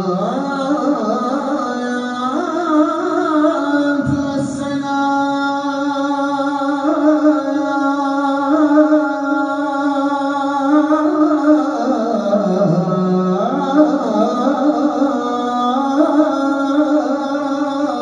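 A man's solo voice chanting a Turkish sela (salâ) in makam Hüseyni. It moves in one long unbroken phrase of held notes with melismatic ornaments, sinking to its lowest pitch about two-thirds of the way through before rising again.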